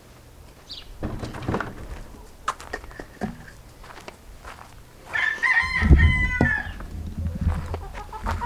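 Chickens, with a rooster crowing once, a loud call of about a second and a half starting about five seconds in, after scattered short calls and rustling knocks.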